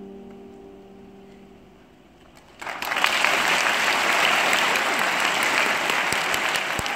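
A held final musical chord fades away, then after a short hush the audience bursts into loud applause about two and a half seconds in, clapping steadily as the number ends.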